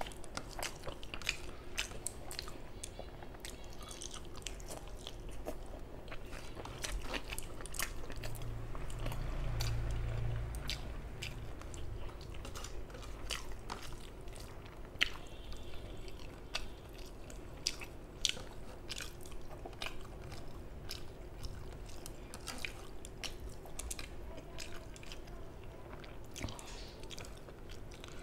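Close-miked eating by hand: wet chewing and mouth clicks, with fingers squishing rice mixed with mustard-poppy fish curry on a steel plate. A low rumble swells and fades about ten seconds in.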